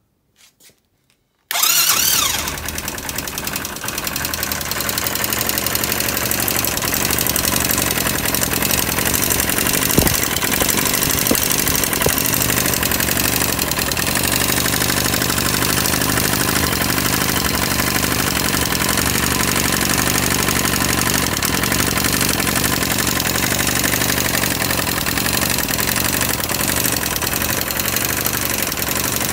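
Air-cooled 250 cc ATV engine starting about a second and a half in and then idling steadily, with a very pronounced metal-on-metal tapping from the valve train: the tappet (valve) clearance is far too large.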